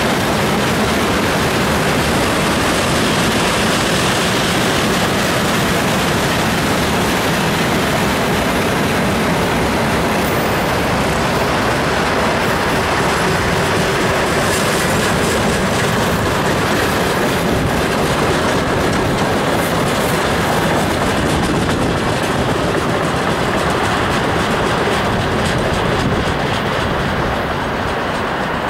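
A freight train's wagons, tank cars and then boxcars, rolling past close by with steady wheel-on-rail noise, which eases off a little near the end as the last cars go by.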